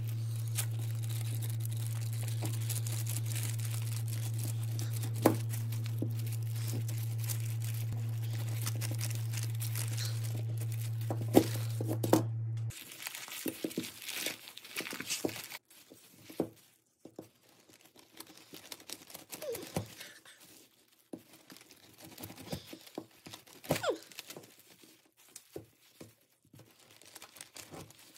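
Rustling and clicking handling noises, irregular and scattered throughout, over a steady low hum that stops abruptly about halfway through.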